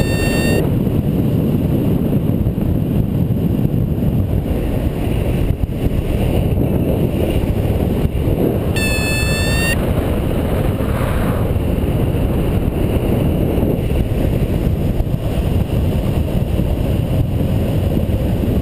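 Steady rush of airflow buffeting the microphone during paraglider flight. A steady high electronic tone sounds briefly at the start and again for about a second around nine seconds in.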